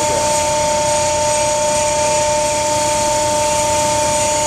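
Hydraulic winch rig running steadily: a constant mechanical whine with two steady pitches over an even hum, unchanging throughout.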